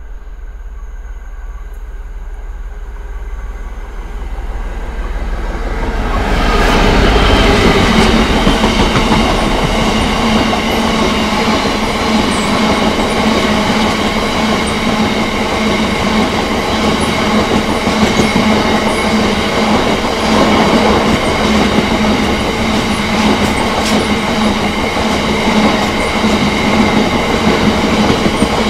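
Diesel-hauled freight train passing at speed. Its low rumble grows louder, then about six seconds in it turns into the loud, steady rumble and clatter of wagons rolling past on the rails.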